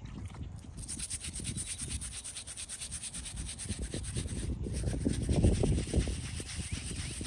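Small hand brush scrubbing the face of a stone headstone in quick back-and-forth strokes, getting louder past the middle.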